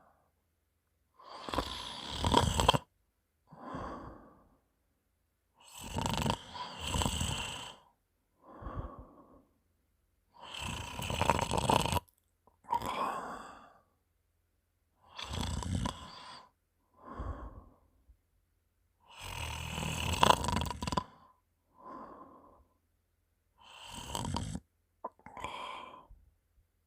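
A person snoring in sleep after drinking alcohol, with a wet, phlegmy sound from mucus in the throat. There are about six breaths, each a longer, louder snore followed by a shorter, quieter one, with silent pauses between them.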